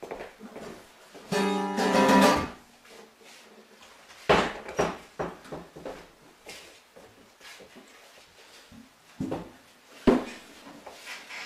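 Acoustic guitar: a chord rings out about a second in, then sharp knocks and thumps as the guitar is handled, and another strum near the end.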